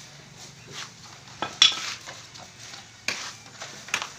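A few sharp wooden knocks and clacks from the slats of a wooden bed frame as a child leans and pushes on them. The loudest comes about one and a half seconds in, with more near three and four seconds.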